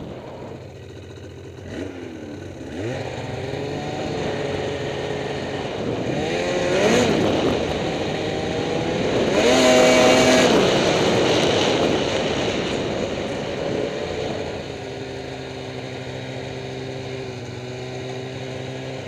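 Snowmobile engine under throttle, its pitch climbing in several surges to its loudest about ten seconds in, then settling to a steady, lower note for the last few seconds.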